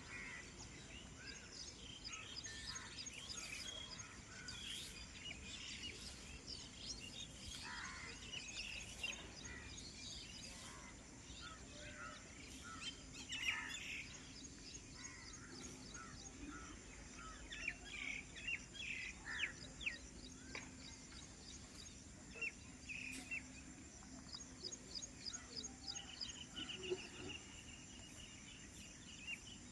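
Many small birds chirping and calling at once, a mix of short chirps and quick trills, over a faint steady hiss. A faint low steady hum sits under them through the middle.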